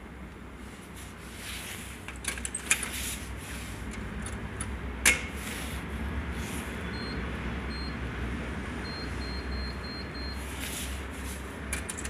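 Metro ticket vending machine's card reader and PIN pad during a retried credit-card payment: a few sharp clicks and taps, then a run of short high beeps as keys are pressed, over a steady low hum.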